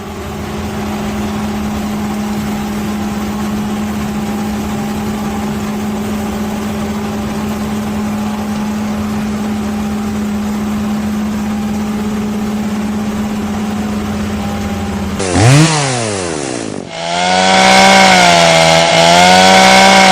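A small high-revving engine, like a chainsaw's, runs steadily at one pitch for about fifteen seconds. It then revs up and down, and for the last few seconds runs louder at high revs with a wavering pitch.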